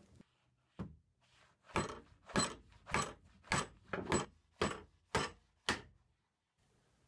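Rubber mallet striking an antique wooden chair frame eight times, about two blows a second, knocking a glued rail joint apart so its tenons slide out of the leg. A single lighter knock comes just before the blows.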